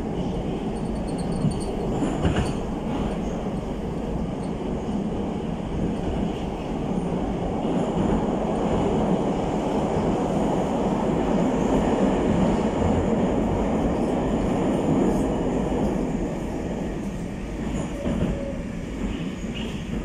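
Running noise of a Moscow metro 81-765/766/767 train, heard from inside the car: a steady rumble of wheels and traction gear that swells through the middle and eases off near the end.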